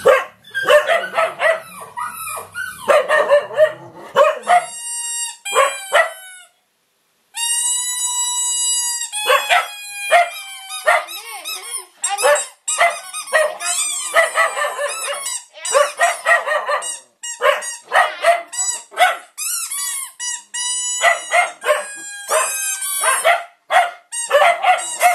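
Dogs barking and yipping over and over, with drawn-out high-pitched squeals between the barks. The sound cuts out completely for a moment about six and a half seconds in.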